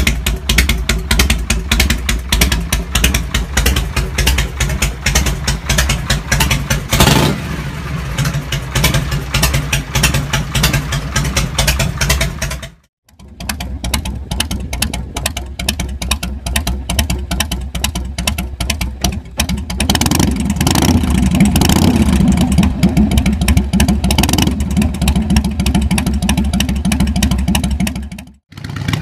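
Harley-Davidson Shovelhead air-cooled 45-degree V-twin running at idle with a steady beat of firing pulses and a quick rev about seven seconds in. After a brief cut, a Harley-Davidson Evolution V-twin idles, then runs louder and harder from about two-thirds of the way through.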